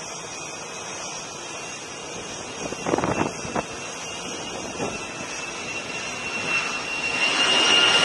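F-35C Lightning II's single Pratt & Whitney F135 turbofan on carrier landing approach: jet noise with a high steady whine, getting louder over the last few seconds as the aircraft closes in. A short burst of wind noise comes about three seconds in.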